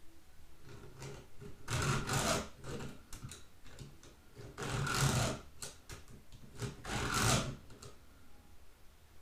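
Codirom 2-in-1 chainsaw file sharpener (round file with flat depth-gauge files) scraping across the cutter teeth of a 3/8 Oregon saw chain, sharpening it: three main filing strokes about three seconds apart, with lighter scrapes between.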